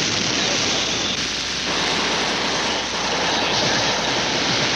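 Sikorsky rescue helicopter in flight: a loud, dense, steady rush of rotor and engine noise. The noise shifts abruptly a couple of times.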